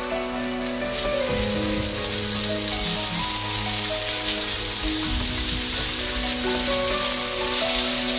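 Diced potatoes and red onion sizzling in a frying pan while being stirred with a wooden spatula; the sizzle grows louder about a second in. Background music with held notes plays over it.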